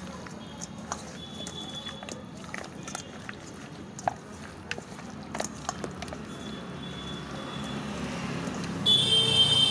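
Wet squelching and scattered clicks of a bare hand kneading chicken pieces in thick chilli masala in a steel bowl, over a low steady hum. Near the end a louder high-pitched squeal starts.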